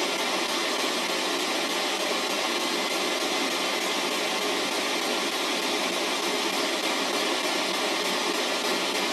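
P-SB11 spirit box sweeping through radio stations, putting out a steady hiss of white-noise static.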